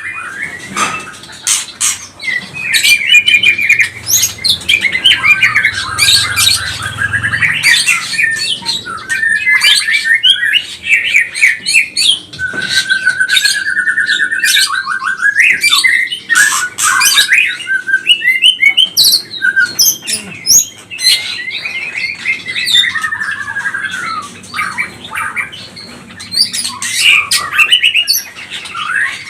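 White-rumped shama (murai batu) singing energetically without pause: a varied string of loud whistles, harsh chips and sharp clicks, with a fast trill of rapidly repeated notes about halfway through.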